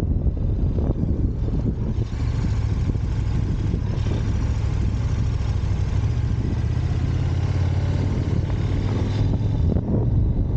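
On-board sound of a KTM 1290 Super Adventure's V-twin engine running steadily at road speed, mixed with wind rush that grows louder and brighter from about two seconds in until near the end.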